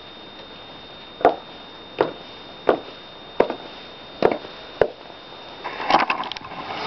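Footsteps of high-heeled shoes: six sharp, evenly paced steps about two-thirds of a second apart. Near the end comes rustling and knocking as the camera is handled and picked up.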